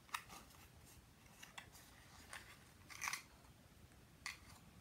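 Miniature toy cereal box and its packaging handled and opened by hand: faint, scattered clicks and crinkles about a second apart, the loudest about three seconds in.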